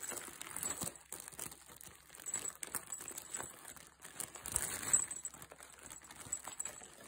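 Fabric rustling and crinkling with small scratchy clicks as a kitten tussles with a hand under a cloth cover, growing louder for a moment about halfway through.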